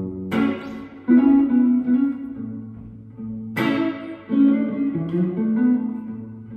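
Fender Stratocaster with Seymour Duncan SSL-1 pickups, played through a JHS Morning Glory overdrive into a Fender Vibro Champ Reverb '68 Custom amp. Two chords struck about three seconds apart, each left to ring and fade while softer single-note fills are picked over it, in a slow ballad style.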